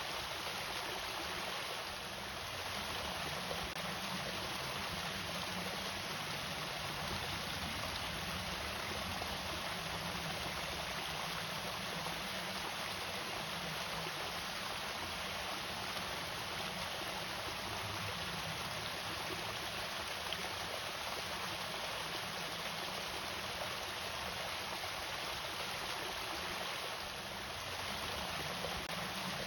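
Steady rush of water falling over a small irrigation waterfall.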